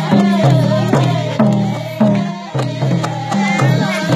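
Folk music: a deep, pitched drum keeps a steady beat of about one and a half strokes a second under a held melody line, with voices rising in near the end.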